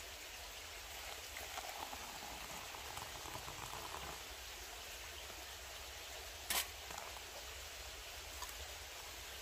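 Hot water poured from a camping pot into a metal mug for about three seconds, followed by a single sharp knock about six and a half seconds in.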